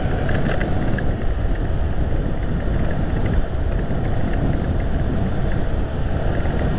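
Motorcycle riding through city traffic: a steady low rumble of wind and road noise.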